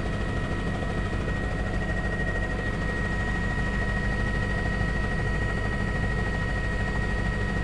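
Helicopter engine and rotor drone heard from inside the cabin, a steady even noise with fast low pulsing and a thin steady whine on top.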